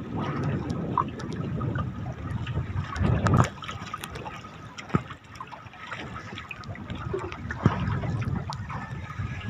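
Sea water splashing and lapping around the boat and net, with a low rumbling noise of wind on the microphone. It swells louder a little after three seconds in, and a few sharp knocks come through.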